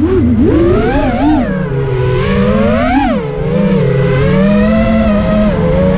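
FPV racing quadcopter's motors and propellers whining, the pitch rising and falling with each throttle punch. The sharpest rise comes about three seconds in, and the pitch is steadier after that.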